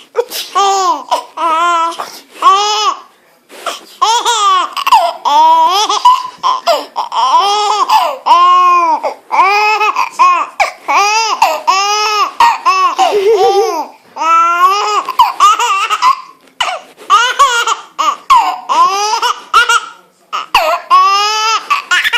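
Baby laughing hard at sneezes: runs of high-pitched, rising-and-falling squeals of laughter, one or two peals a second, with short catches of breath between the runs.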